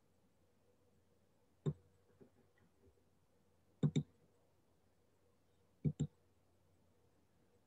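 Computer mouse clicking: a single click, then two quick double-clicks about two seconds apart.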